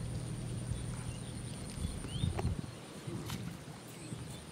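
Rural outdoor ambience: a steady low rumble with a few short high chirps and a thin, steady high whine, a brief louder low patch about two seconds in and a single click a little after.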